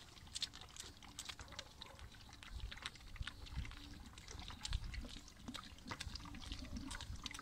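A calf sucking milk from the teat of a large plastic feeding bottle: faint, irregular wet clicks and slurps.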